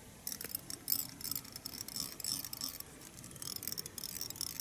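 Fly-tying thread being wrapped around a hook to tie in a hackle feather: rapid fine clicking and rasping as the bobbin pays out thread, in two spells with a short pause around the middle.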